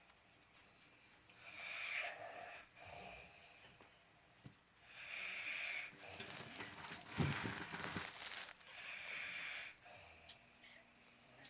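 A sleeper snoring and breathing wheezily: hissy breaths come every few seconds, with a louder, rougher breath about seven seconds in.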